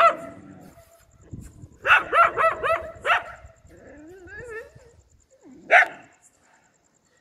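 Stray dogs barking: one bark at the start, a quick run of about five barks about two seconds in, a brief whine, and one last bark near six seconds.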